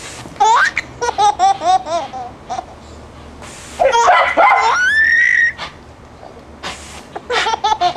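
A baby laughing: quick repeated bursts of high-pitched laughter, then a long squeal that rises in pitch and holds about four seconds in, and more bursts of laughter near the end.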